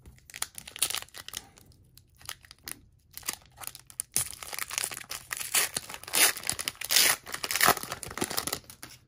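A foil Upper Deck hockey card pack being torn open by hand: irregular crinkling and ripping of the wrapper, loudest in the second half.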